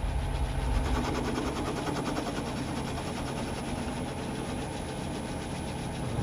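Metal lathe running: a steady motor-and-gear hum with a fast, fine rattle from the gear train. Near the end the hum shifts lower.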